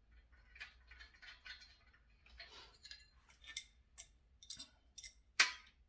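Irregular small metal clicks and scrapes as a nut is fitted onto a bolt of a table-saw leg stand, with one sharper click about five and a half seconds in.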